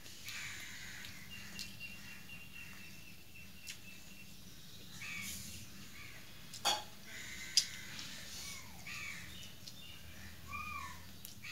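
Eating by hand from a steel plate, with two sharp clicks about a second apart a little past halfway. Birds call in the background, including a few short arched call notes near the end.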